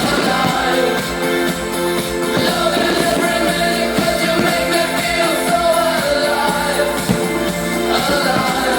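Pop music with singing and a steady beat.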